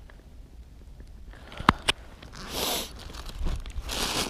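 Handling of fishing tackle and a winter jacket: two sharp clicks close together, then short bursts of rustling as gear is changed over to a wobbler lure.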